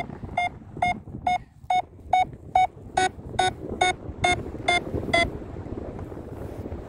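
Paragliding variometer beeping, about thirteen short even beeps at roughly two a second that stop about five seconds in. This is the climb tone that signals the wing rising in a thermal.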